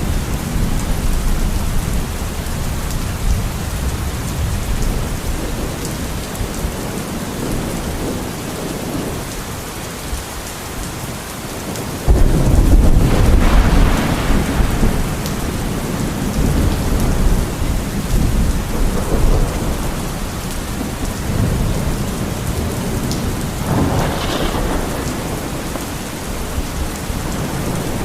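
Steady rain of a thunderstorm, with low thunder rumbling under it. Near the middle a sudden loud thunderclap breaks in and rolls on for a few seconds, and a smaller rumble swells near the end.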